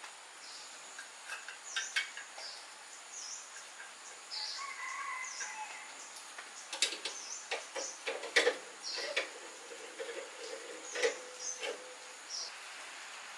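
Scattered sharp metal clinks and taps as a steel spit is pushed through a bamboo tube and set on a steel grill stand, with birds chirping in the background.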